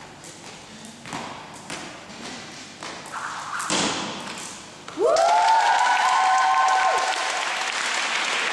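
A skipping rope lightly tapping the hall floor, then about five seconds in a loud rising whoop from spectators, held for about two seconds, over clapping and cheering as the routine ends.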